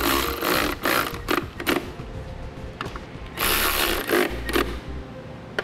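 Cordless electric ratchet running in short bursts as it drives the tail light's mounting bolts in. There is one run in the first half second, a few quick blips, and a longer run about three and a half seconds in.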